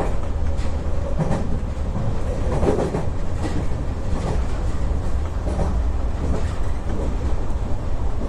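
Tokyu 3020 series electric commuter train running along the track, heard from inside the driver's cab: a steady low rumble with irregular clicks as the wheels pass over the rails.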